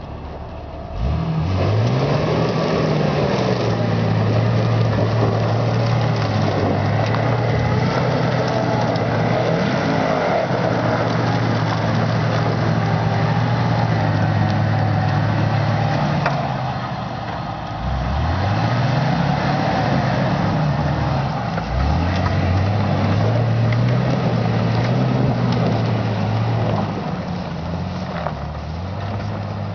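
Jeep engine revving hard under load as it churns through a mud hole, the revs climbing sharply about a second in and held high. The revs drop and climb again twice in the second half, then ease off near the end.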